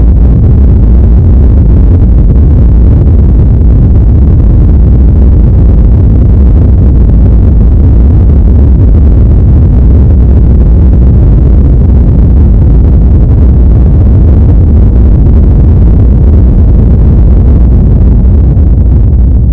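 Earthquake sound effect: a loud, steady deep rumble.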